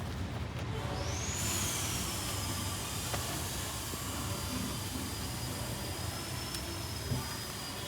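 A steady hiss over a low hum, with a thin high whine that comes in about a second in, slides down a little and then holds level, like a running motor; a couple of faint clicks.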